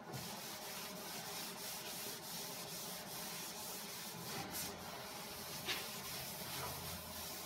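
Blue cloth shop towel wiping back and forth over a 1960 Pontiac Ventura's steel front fender, cleaning it with wax and grease remover to prepare it for body filler: a steady rubbing, with a couple of louder strokes in the second half.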